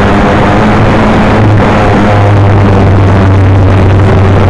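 Model Cessna airplane's motor and propeller droning steadily in flight over a loud hiss, picked up by the onboard camera.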